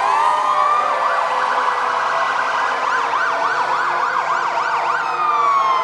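Several fire truck sirens sounding at once. A wail rises at the start, a fast up-and-down yelp runs through the middle, and near the end the yelp gives way to a long falling wail.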